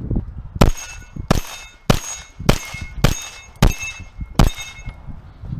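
About seven handgun shots at a steady pace, a little over half a second apart. Each is followed by the clear ring of a steel target plate being hit.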